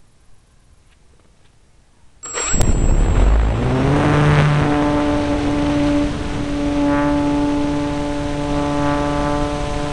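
Motor and propeller of a radio-controlled model airplane, heard from on board. About two seconds in the motor starts abruptly and spools up, its pitch rising for a second or so. It then runs at a steady high tone over a rush of air.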